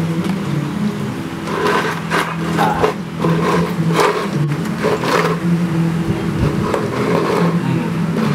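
A plastic food bowl scraping and knocking on a tile floor as an Alaskan Malamute puppy noses and licks at it: a string of short scrapes and clatters, thickest a couple of seconds in, over a steady low hum.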